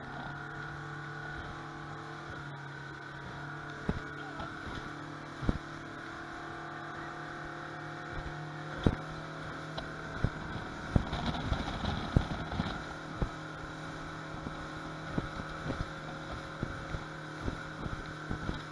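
Motorboat underway at speed, its engine running at a steady pitch, with sharp knocks of the hull slapping over waves that come thick and fast about halfway through.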